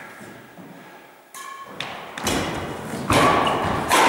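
Badminton rally: rackets strike the shuttlecock back and forth in several sharp hits roughly a second apart, starting about a second in. Each hit echoes in the large hall.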